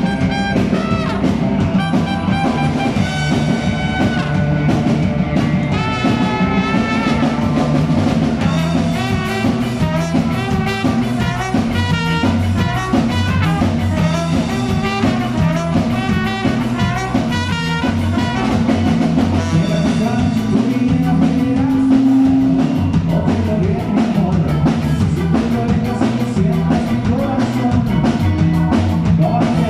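Band music with a steady drum beat, bass and a melodic lead line.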